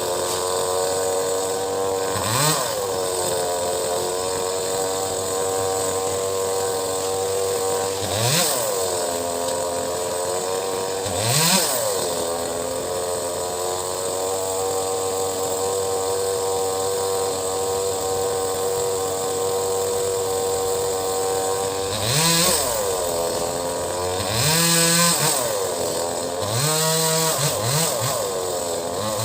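Two-stroke chainsaw running at high revs. Its engine note drops sharply and climbs back up about six times through the stretch.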